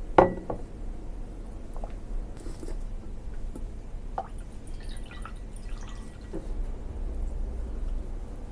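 A glass tea cup knocks down onto a wooden table just after the start. Then tea is poured from an enamel teapot into the glass, trickling and dripping, with a few light clinks of glass and pot.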